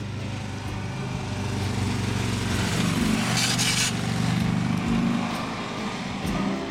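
Large V-twin touring motorcycle riding past on a winding road. Its engine grows louder as it comes close about halfway through, then fades as it pulls away.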